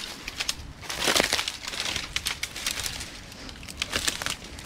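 Footsteps crunching through dry dead stalks and undergrowth, with brittle stems crackling and snapping underfoot. The loudest crunch comes about a second in.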